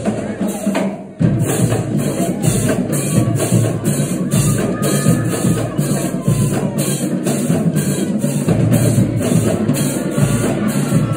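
High school drumline playing a cadence: snare, tenor and bass drums in a steady, driving beat that briefly drops out about a second in and then comes back.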